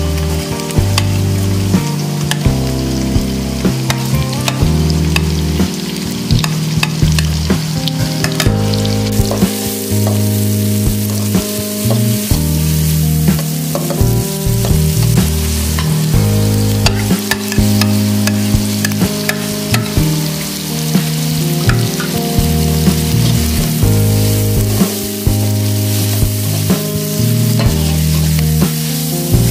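Chopped onions, garlic, green chillies and curry leaves sizzling as they fry in hot oil in a pan, stirred with a spatula that clicks and scrapes against the pan again and again.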